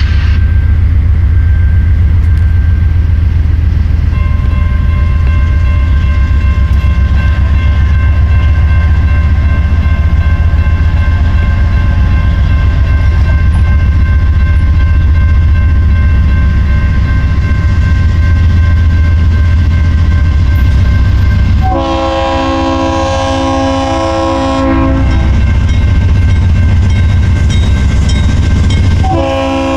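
Diesel locomotives rumbling heavily as a train runs by. About 22 seconds in, a multi-chime air horn sounds one loud chord for about three seconds, and it sounds again just at the end.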